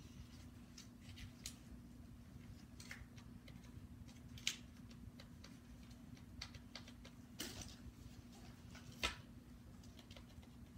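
Light plastic clicks and taps from an airsoft rifle and its parts being handled, scattered and irregular, with the sharpest two about four and a half and nine seconds in, over a faint steady low hum.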